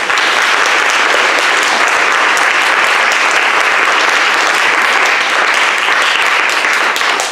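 Audience applauding, a dense, even clapping that holds at one level.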